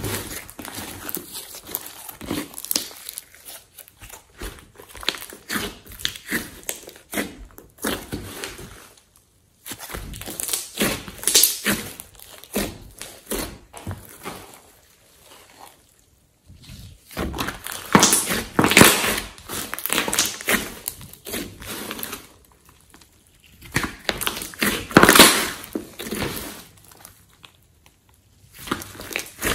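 Thick orange slime mixed with clay, kneaded, stretched and pressed by hand, giving sticky crackling and clicking in irregular bursts, with short pauses between handlings.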